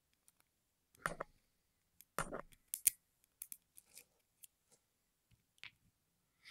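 Small metal parts of a disassembled pin-tumbler lock being handled: irregular sharp clicks and short scrapes as the pins and spring of a chamber are taken out, the loudest about a second in and again two to three seconds in.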